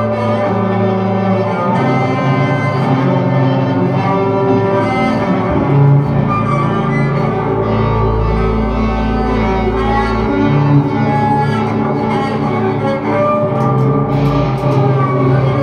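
Improvised experimental music: layered sustained low notes from bass and baritone electric guitar drone and shift slowly. A very deep low note swells in about six seconds in, drops away around ten, and returns briefly near the end.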